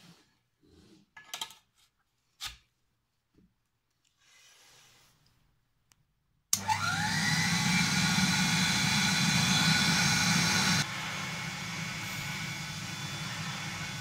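A few light knocks and clinks as chrome wand tubes are handled, then a late-1940s Gordon Major cylinder vacuum cleaner is switched on about six and a half seconds in: its motor whines quickly up to speed and runs steadily. About four seconds later it turns abruptly quieter and keeps running.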